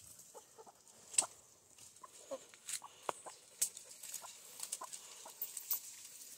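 Domestic chickens clucking softly now and then, with a few sharp ticks and knocks scattered among the calls.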